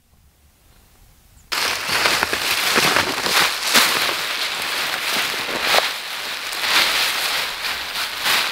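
Nylon tent inner with mesh netting and a groundsheet rustling and crinkling loudly as it is handled, starting suddenly about a second and a half in and going on as a dense, crackly rustle.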